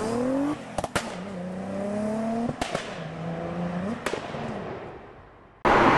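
A car engine accelerating hard through the gears: the pitch climbs three times, drops at each shift, and sharp cracks come at the shifts. It fades away near the end.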